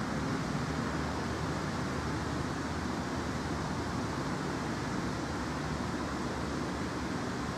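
Steady outdoor background noise: an even hiss with a faint low hum.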